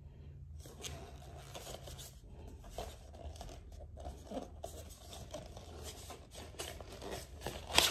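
Plastic DVD case handled and turned over in the hands: soft scratchy rustling and light ticks, with a louder click near the end.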